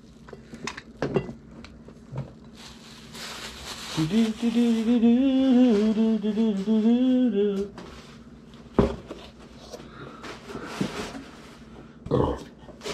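A man humming a wavering tune for a few seconds, with rustling of plastic wrapping just before and as it starts. Later come a couple of sharp knocks.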